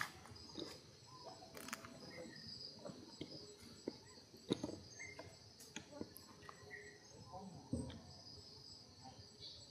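A steady, high-pitched chorus of insects chirring, with scattered faint rustles and clicks and one sharper click about halfway through.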